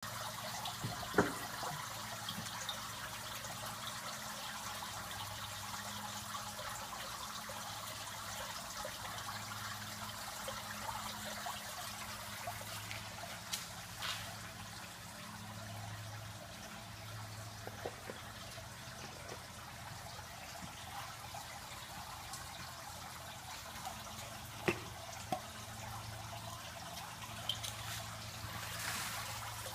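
Steady trickle of running water with a faint low hum underneath, and a few scattered sharp clicks.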